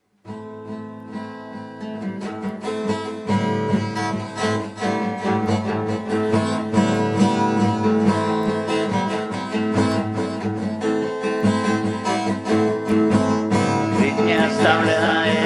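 Instrumental song intro: guitar-led backing music that starts abruptly and grows louder over the first few seconds. A man's singing comes in near the end.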